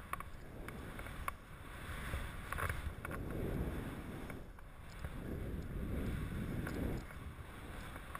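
Skis hissing through deep powder snow, swelling twice in long swishes as the skier turns, over a steady rumble of wind on the helmet camera's microphone, with a few sharp knocks in the first seconds.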